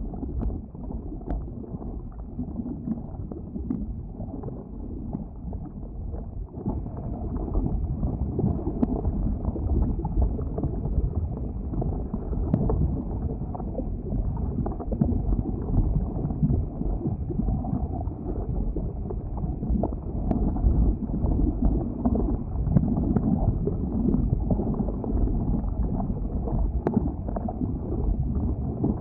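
A looping lava-flow sound effect: a continuous dense low noise with faint clicks now and then. It grows louder about six and a half seconds in as its volume is turned up.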